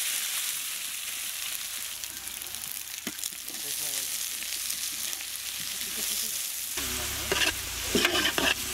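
Freshly added sliced onions sizzling steadily in hot oil in a wide metal pan, stirred and spread with a metal spatula.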